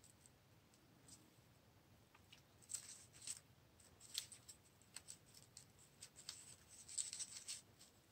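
Faint crinkling of crumpled brown paper being twisted and rolled between the fingers into a small rolled rose, in scattered short rustles that come thickest around three seconds in and again near the end.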